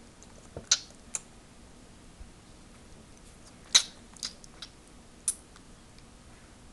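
Baby's wet mouth smacks and clicks as she sucks casserole off her fingers: about six short, sharp smacks scattered irregularly, the loudest about a second in and near the middle.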